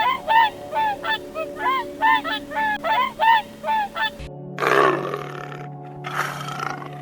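A bird giving a rapid run of honking calls, about three a second, which stops suddenly about four seconds in. Two harsh, rasping calls from a different animal follow.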